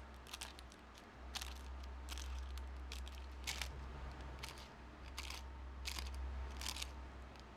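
Scissors cutting crinkled, textured paper into thin strips: a run of crisp snips, more than ten of them, one or two a second.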